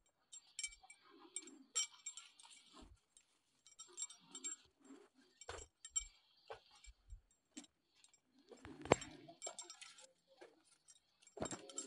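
Footsteps on a dirt trail and tall grass brushing past, heard as irregular rustles, crunches and clicks. There is one louder knock about nine seconds in.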